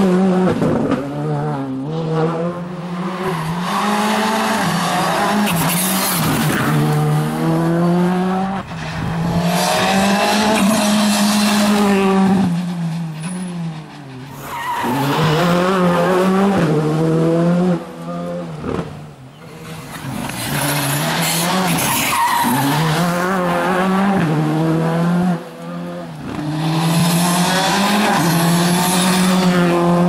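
Škoda Fabia R5 rally car's 1.6-litre turbocharged four-cylinder engine driven hard. The revs climb and fall repeatedly with gear changes and lifts for the corners, and the sound dips briefly a few times.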